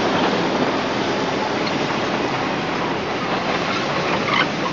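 Steady mechanical din of a mobile truck crane at work, its engine running as it lifts steel pipes on a truck trailer.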